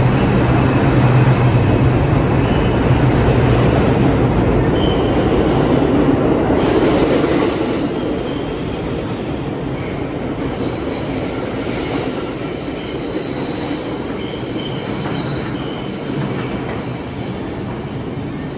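R142 subway train pulling out of the station, rumbling along the rails with its wheels squealing in thin high tones. The rumble fades as it runs off into the tunnel.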